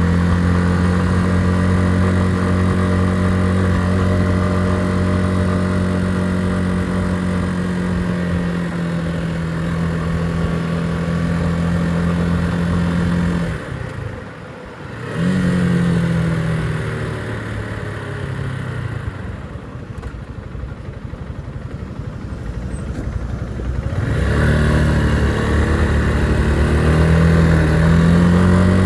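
Motorcycle engine under way at a steady pitch. About halfway through the throttle comes off sharply and the engine drops back, picking up briefly before settling lower for several seconds. Near the end it pulls up again, rising in pitch.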